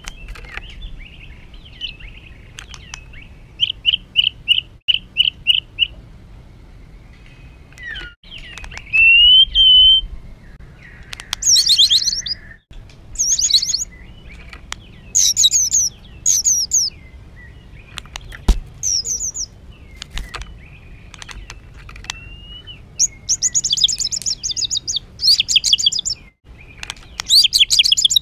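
White-rumped shama (murai batu) rough, harsh song used as a training recording: separate phrases with short gaps, among them a quick run of about six repeated notes, a rising whistle, and several short, fast, high trills.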